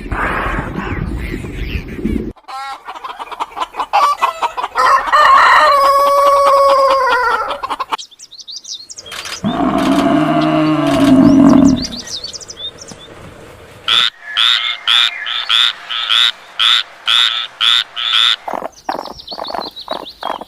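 A run of short animal clips: a rooster crowing in a long call that falls away at the end, other low calls, then a fast series of short, even calls about three a second.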